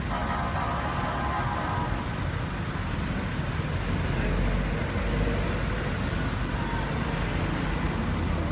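Steady low rumble of city street traffic, with a steady whine-like tone over the first two seconds.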